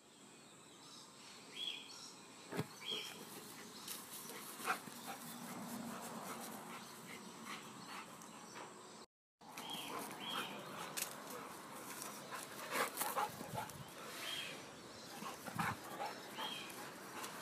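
A dog giving short high-pitched whines several times, among scattered light clicks and knocks.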